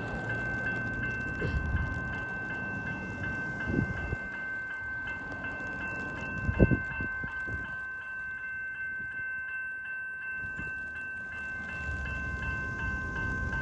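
General Signals electronic level-crossing bell ringing with rapid, evenly repeated strokes, the warning that the crossing is active. A low rumble runs underneath, with a few short thumps.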